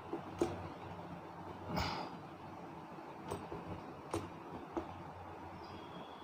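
Faint rubbing of a duster wiping a whiteboard clean, with a handful of short knocks and clicks spread through it.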